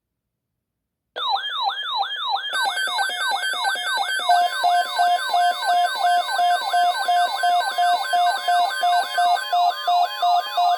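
Synthesized electronic siren alarm: rapid falling yelp sweeps, about three a second, layered with pulsing beeps and a higher warbling tone. It starts abruptly about a second in, out of dead silence.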